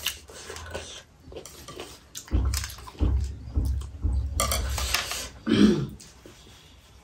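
Close-miked eating sounds: chewing with small clicks, low thumps, and a sucking slurp off the chopsticks about four seconds in, then a short burp that drops in pitch.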